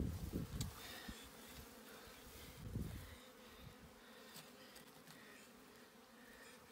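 Faint, steady insect buzzing, with a couple of dull low bumps near the start and about three seconds in as the deer carcass is handled during field dressing.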